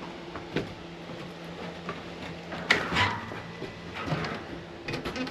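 Scattered knocks and clatter from equipment and tools being handled during installation work, over a steady low hum. The sharpest knocks come about half a second in and around three seconds, with more clatter near the end.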